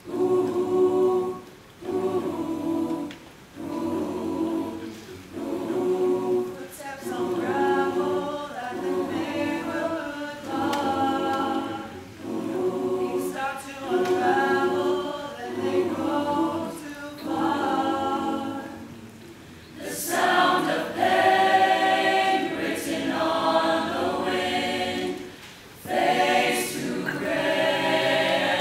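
Mixed high-school choir singing in harmony, in short pulsing phrases about once a second, then swelling into a fuller, louder passage with higher voices about twenty seconds in.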